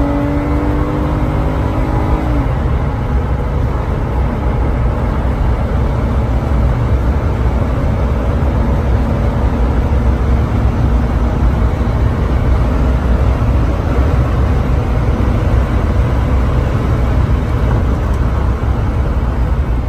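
Inside the cabin of a 2012 Jeep Wrangler with its 3.6-litre Pentastar V6 accelerating hard toward 100 mph. The engine tone rises until about two and a half seconds in, then a loud, steady rush of wind and road noise takes over.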